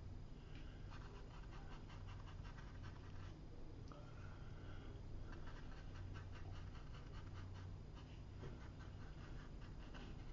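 Watercolour brush dabbing and scratching on paper in quick little strokes, faint, in two spells of rapid ticks. A steady low hum runs beneath.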